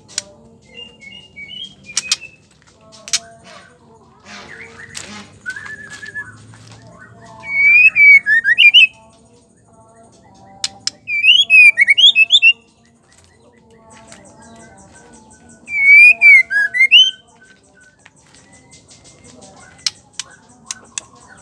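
Female white-rumped shama (murai batu) calling. Three loud phrases of rapid up-and-down whistled notes come at about eight, eleven and sixteen seconds in, with softer chips and a few sharp clicks between them.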